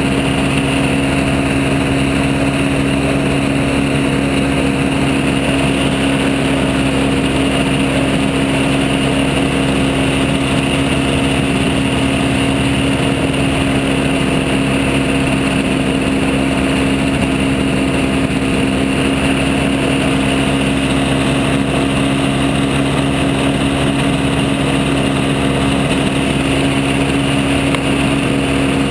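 Engine of a microlight trike running at a steady speed, heard from on board as it taxis along the runway; the drone holds one pitch without revving up or down.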